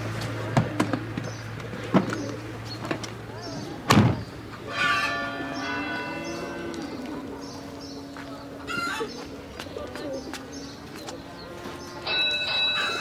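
Pigeons cooing, with small birds chirping. It follows a low steady hum with clicks that ends in a thud about four seconds in.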